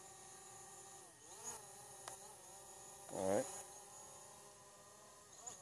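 Faint steady whine of a hovering DJI Mavic Pro quadcopter's propellers, dipping in pitch a little after one second. About three seconds in comes a short, louder motor whine that rises in pitch.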